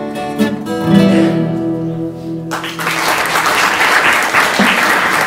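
Acoustic guitar playing chords that ring on, then cut off suddenly about halfway through. Audience applause follows.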